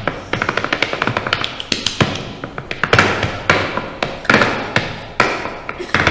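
Percussive music of fast, sharp taps, with louder accented strikes about once a second, each ringing briefly.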